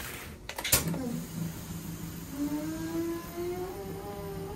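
Class 139 electric locomotive being powered up: a sharp clunk of switchgear about a second in, then a steady hum and a motor whine that rises in pitch as it spins up.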